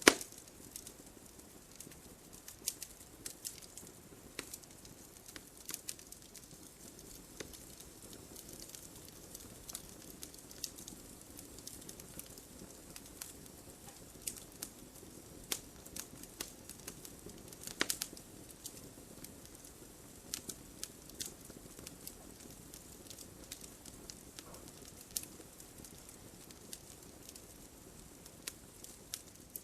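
Wood logs burning in a fireplace: a low hiss of the flames with sharp, irregular crackles and pops, a strong pop right at the start and another about two thirds of the way through.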